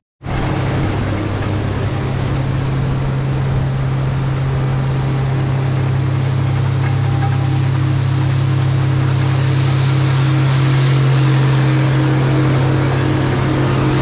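Steady mechanical hum of running machinery, with a strong low drone and a fainter pulsing tone above it near the end.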